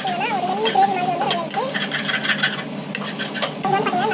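A perforated metal spatula stirring and scraping a frying onion mixture around a metal pot, with sharp clicks as it knocks the pot's sides and a steady sizzle from the food.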